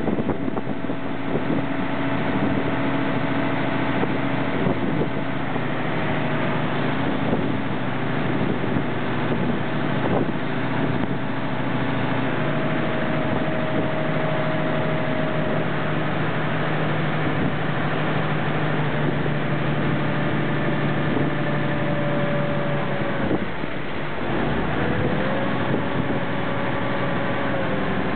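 Express river boat's engine running steadily under way, with the rush of its churning wake and some wind on the microphone. The engine note drops briefly about 23 seconds in and picks back up a couple of seconds later.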